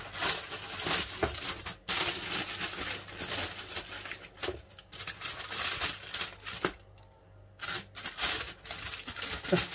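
Aluminium foil crinkling and rustling as hands crimp it around the rim of a round baking pan, with a short lull about seven seconds in.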